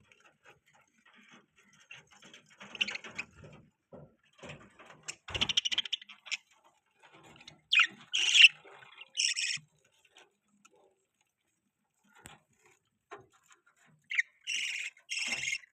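Pet budgerigars chirping in short, high-pitched calls with quiet gaps and softer chatter between. The loudest chirps come about halfway through and in a quick run of several near the end.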